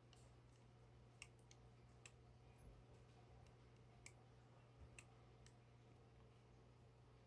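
Near silence: a faint steady low hum from the aquarium's equipment, with about six faint, sharp clicks scattered through it.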